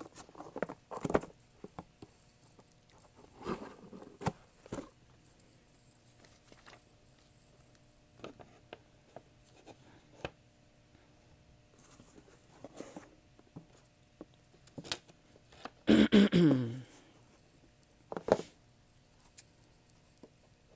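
Handling and opening a cardboard box with scissors: scattered scrapes, clicks and rustles. About 16 seconds in there is a brief, louder vocal sound that falls in pitch.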